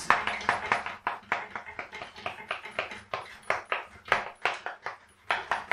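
Chalk writing on a blackboard: a quick run of taps and short scrapes, about four strokes a second, as kanji are written stroke by stroke.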